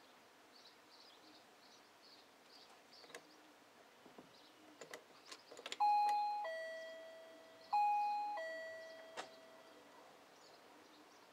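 Doorbell chime sounding a two-tone ding-dong twice, about two seconds apart, each note ringing out and fading, as a dog presses the button with its nose. A few light clicks and taps come just before the first chime.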